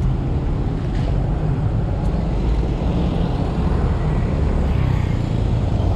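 Steady low rumble of road traffic and vehicle noise.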